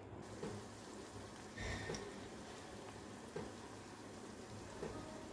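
Hot oil sizzling faintly and steadily as vada batter fries in a kadai, with a few soft knocks.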